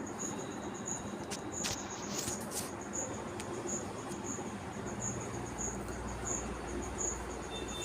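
Insect chirping in a high, regular pulse, about three chirps a second, with a few faint clicks in the first few seconds.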